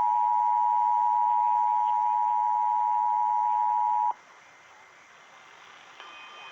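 Emergency Alert System attention signal: two steady tones sounding together, cutting off sharply about four seconds in. It marks the start of a flash flood warning broadcast.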